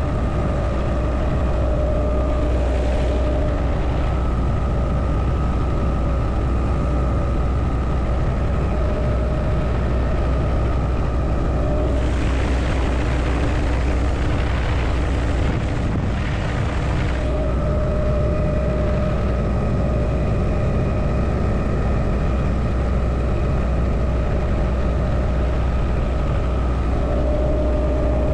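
Helicopter in flight heard from inside its open-door cabin: a steady low rotor drone with a constant engine and gearbox whine over it. A louder rush of wind rises for a few seconds about halfway through.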